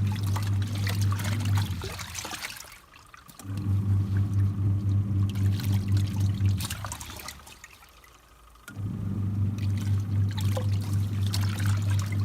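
Twin-tub washing machine's wash tub churning water, its motor humming under the sloshing. It runs three times for a few seconds each, stopping for about two seconds in between as the pulsator reverses direction.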